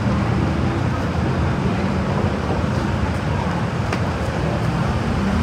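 Busy street ambience: a steady wash of road traffic from passing motor vehicles, with snatches of people's voices mixed in.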